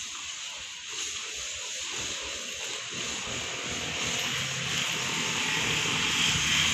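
Diesel locomotive engine running under load as it pulls a passenger train out of the station. A low drone that grows steadily louder from about two seconds in, with a constant hiss over it.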